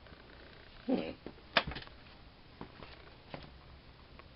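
Quiet handling noise with the motor stopped: a soft thump about a second in, then a sharp click and a few lighter clicks and knocks.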